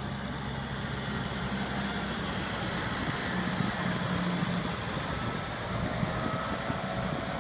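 A vehicle engine running steadily, with a constant low hum.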